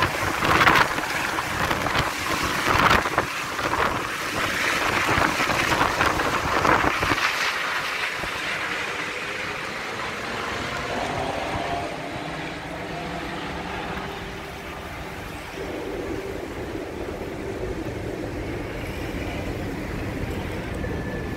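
Rescue helicopter climbing away overhead, its rotor and engine noise loud and surging at first, then fading away over about eight seconds to a quieter steady background.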